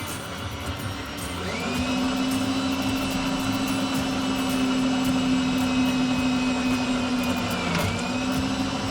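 Electric drill motor spinning up about a second and a half in and running steadily while drilling through the steel trunk pan. Near the end its pitch dips briefly as it bogs under load, then it recovers.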